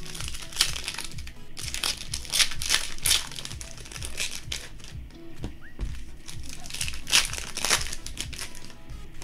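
Plastic wrapping on trading card blaster boxes and packs crinkling and crackling as it is torn off by hand, in irregular handfuls, over steady background music.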